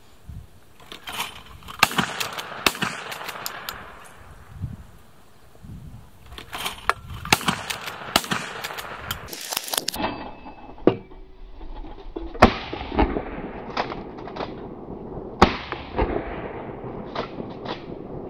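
Several shots from a 12-gauge Mossberg 590A1 Shockwave pump shotgun, sharp cracks with a short echo, the loudest in the second half, among many smaller clicks and knocks.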